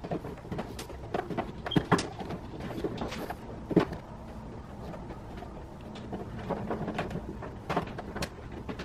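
Hands working a camera cable and car trim: irregular light clicks, taps and knocks, the sharpest about two and four seconds in.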